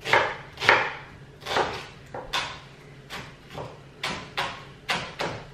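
Chef's knife chopping a red onion into large chunks on a wooden chopping board: about a dozen separate knocks of the blade on the board, coming faster in the second half.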